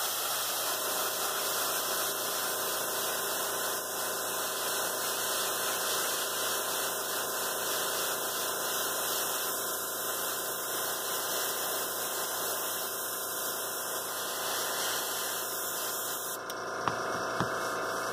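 Airbrush spraying thinned acrylic paint: a steady hiss of air, over the faint even hum of its air compressor. The hiss drops off near the end.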